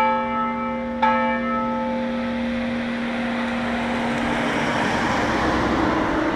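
The large church bell ringing for noon, struck twice, at the start and about a second in, then left to hum and die away over about four seconds. A car passes on the street as the hum fades.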